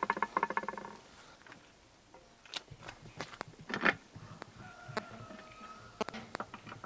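Metal clinks and knocks of bolts and hand tools on a UTB 650 tractor's gearbox housing during reassembly. The loudest comes a little before four seconds in, and a brief rapid squeaking ends about a second in.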